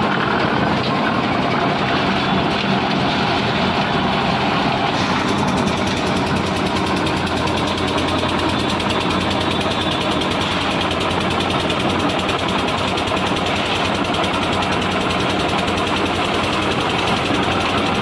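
Stationary diesel engine of a lift-type concrete mixer running steadily under load, driving the turning drum and the hoist that raises the loaded skip up the tower. More hiss comes in about five seconds in.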